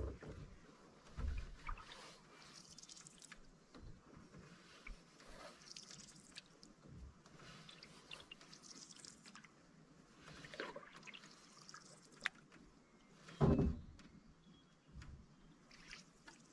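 Water dripping and trickling off a canoe paddle, with small splashes and a few soft knocks, the loudest a thump late on.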